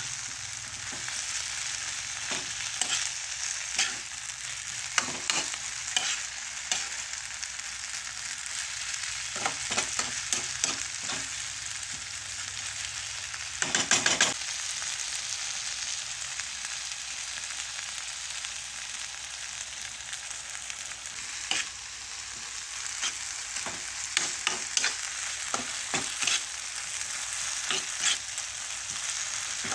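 Bamboo shoots sizzling in a hot pan as they are stirred, with a steady hiss and frequent clicks and knocks of the utensil against the pan. A louder clatter comes about halfway through.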